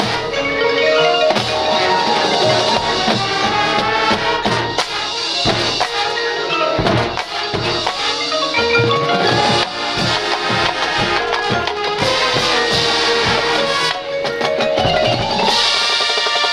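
High school marching band playing its field show, with mallet percussion such as marimba and xylophone and drums prominent under the melody.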